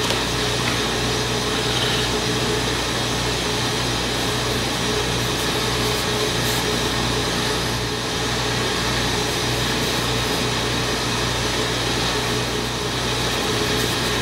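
Steady whir of a running motor with a low hum underneath, unchanging throughout.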